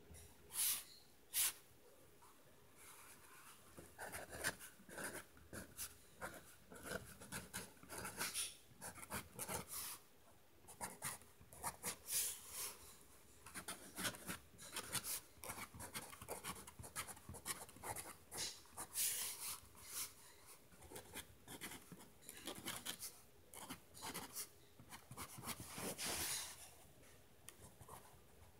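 A Micron fine-liner pen writing on paper: quick scratchy strokes of the pen tip in bursts as words are formed, with short pauses between words. Two brief louder sounds come in the first second and a half.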